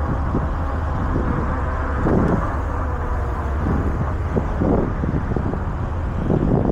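Riding noise on a fat e-bike in strong wind: a steady low rumble of wind buffeting the camera microphone, mixed with tyre and road noise, swelling now and then with gusts.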